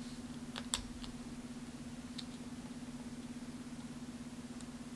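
Fingers and fingernails working a vinyl wrap onto a rifle's metal upper receiver and rail: a few small sharp clicks and taps, the loudest just under a second in, over a steady low hum.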